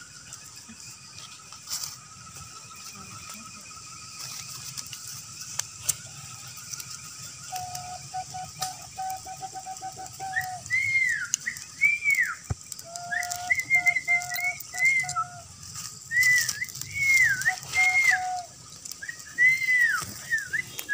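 Whistling: from about ten seconds in, a string of short whistled notes, each rising and falling, over a lower rapidly warbling tone that starts and stops several times.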